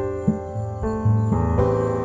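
Background piano music, a new note or chord struck about every half second.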